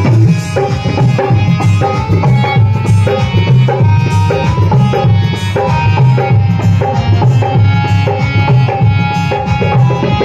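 Indian devotional instrumental music: a tabla-style hand-drum beat over a held melody line, with heavy bass.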